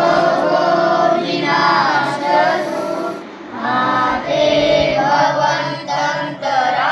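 A group of young Buddhist novice monks chanting together in unison, boys' voices in long sustained melodic phrases, with a short break for breath about three seconds in.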